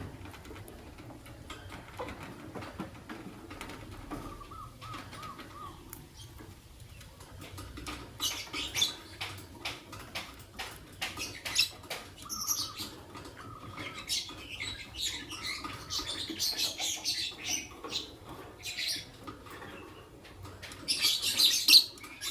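Lovebirds (an albino and a pastel green Fischer's lovebird) chirping and chattering in bursts, mixed with short sharp clicks. It is quiet at first, busier from about a third of the way in, and loudest in a dense burst near the end.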